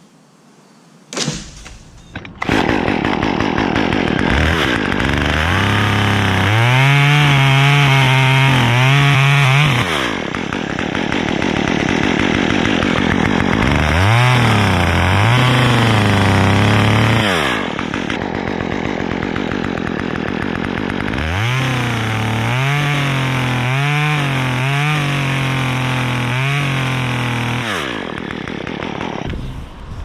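Stihl top-handle chainsaw started about two seconds in, idling and then revving up to full speed in three long runs as it cuts into a dead maple trunk, its pitch dipping and wavering under load; it shuts off near the end.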